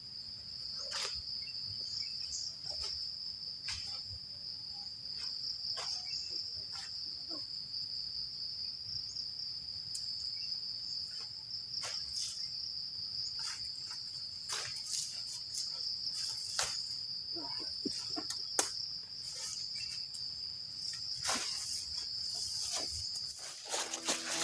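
Crickets trilling in one steady high-pitched drone that cuts off near the end, with scattered snaps and rustles throughout.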